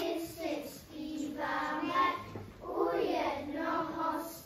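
A group of young children singing together in phrases of held notes.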